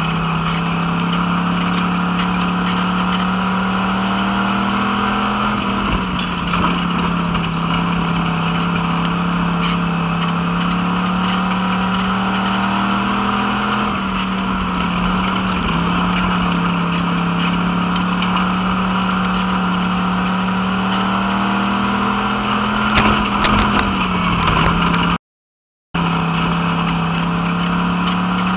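Pure stock dirt-track race car's engine heard from inside the cockpit under racing load. Its pitch climbs slowly down each straight and drops three times as the driver lifts for the turns. A run of sharp knocks comes near the end, followed by a gap of under a second where the sound cuts out.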